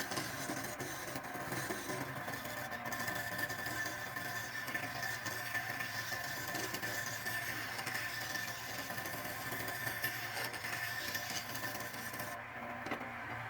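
A woodworking machine running steadily with a hum and a steady whine, with a scraping hiss of wood being worked that stops about a second before the end.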